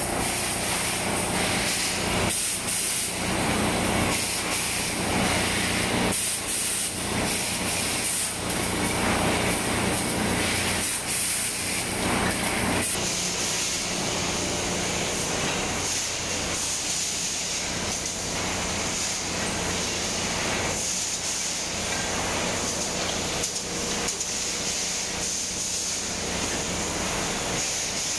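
Running timber cross-cut production line: conveyors and machinery making a steady hum, with repeated short hissing bursts during the first half. About halfway through, the bursts give way to a steady high hiss.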